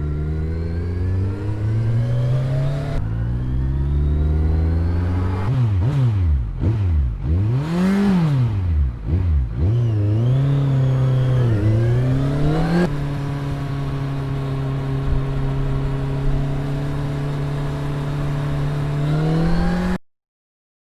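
Kawasaki Ninja 1000 inline-four engine revving through its exhaust. It runs with slow rises in revs, then a run of quick throttle blips in the middle, then holds a steady fast idle before a last rise, and cuts off abruptly near the end.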